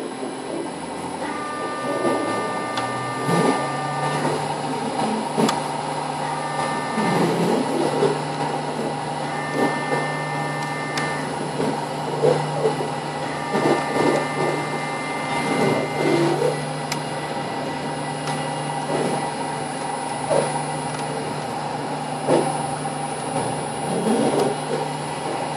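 Machinery running steadily while chopped straw moves through it, with a constant hum and scattered knocks and rattles. A high whine comes and goes four times in the first half.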